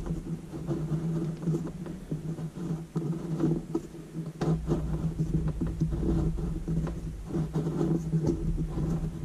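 Pencil scratching and scraping against the wall as a marking line is drawn, in many small irregular strokes, over a steady low hum.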